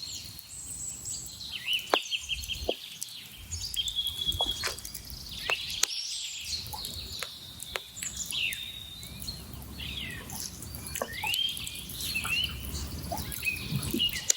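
Small birds chirping and calling in quick, overlapping short notes, with a few sharp clicks and taps mixed in.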